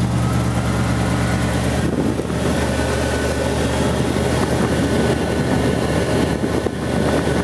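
1979 Ford Bronco's V8 engine idling steadily with the air-conditioning compressor just engaged.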